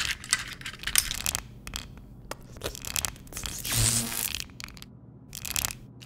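Sound effects of a creature rummaging in a battery compartment and biting a AA battery: a run of short scrapes, clicks and rustles, with a louder crunch about four seconds in.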